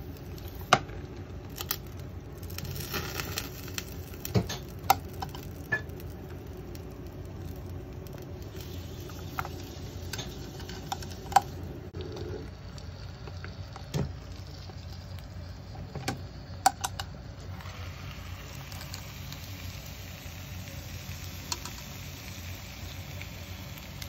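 Portable gas burner running with a steady low roar under a metal hot sandwich maker full of breaded shrimp frying in oil, while the maker is handled and flipped with scattered sharp metal clacks and knocks. A fine hiss of frying oil comes up in the latter part.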